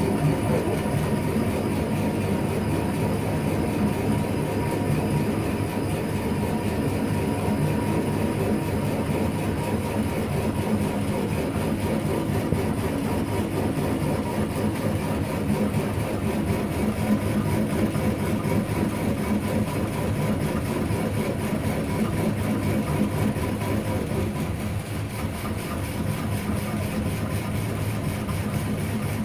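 Lathe running steadily under power: a constant mechanical hum from motor and drive, with a faint steady whine.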